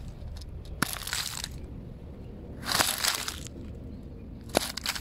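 Fidget toy being handled: bursts of crunching noise with three sharp clicks.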